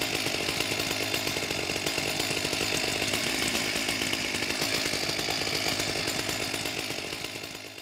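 Chainsaw running steadily, fading out near the end.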